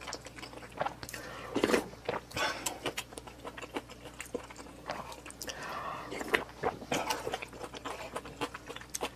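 Close-miked chewing and biting, with irregular sharp clicks and wet mouth noises.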